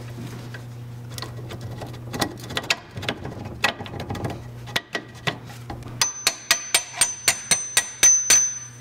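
Long steel through-bolt being wiggled into the BMW E39 rear swing arm and wheel carrier ball joint, with irregular metal clicks and scrapes. About six seconds in, a hammer starts tapping the bolt head home: a quick run of ringing metal taps, about four a second.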